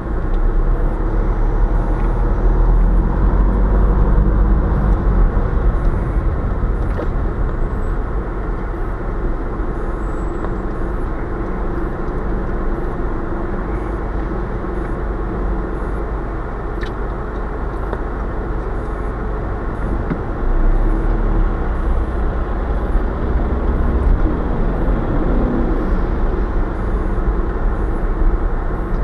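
Steady engine and road noise of a car driving in city traffic, heard from inside the car's cabin.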